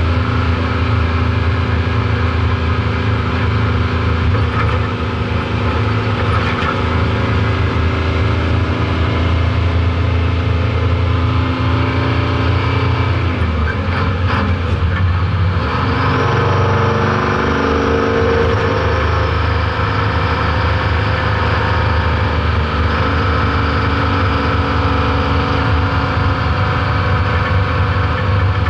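Old truck's engine running steadily under way. About halfway through, its note breaks off for a couple of seconds with a few knocks, then picks up again and rises.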